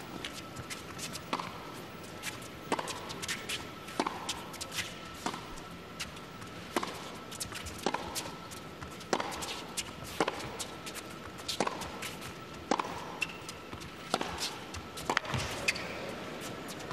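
Tennis racquets striking the ball back and forth in a long baseline rally, a sharp hit about every second and a quarter, over a hushed crowd.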